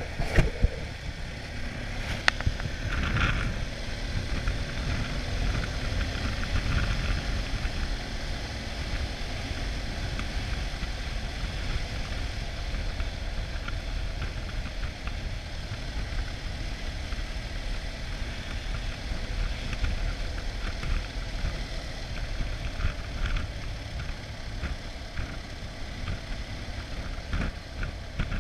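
Motorcycle riding at road speed, heard from a camera on the bike: wind rushing over the microphone covers the BMW F 800 GS's parallel-twin engine running steadily. Two sharp clicks come within the first two seconds.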